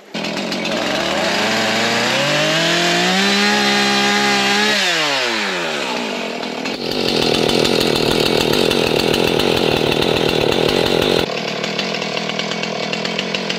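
Two-stroke gas chainsaw running: its engine revs climb over a few seconds, hold high, then drop back. From about halfway it runs flat out and loud, cutting into tree branches, with two sudden changes in the sound.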